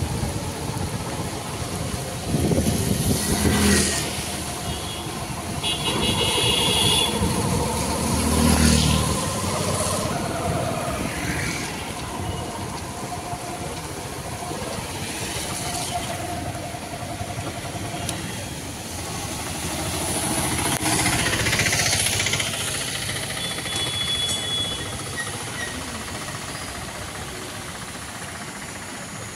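Two-wheeler traffic wading through a flooded street: motorcycle and scooter engines running with the splash and hiss of water thrown up by the wheels. The sound swells as vehicles pass, loudest about three and nine seconds in and again around twenty-one seconds.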